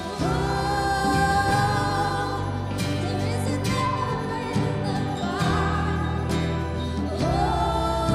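Live contemporary worship music: a woman's lead vocal singing long held notes over electric bass and a full band.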